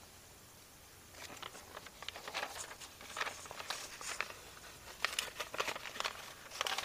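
Faint rustling and scattered light taps of a lined paper notepad being handled as a page is turned over, starting about a second in.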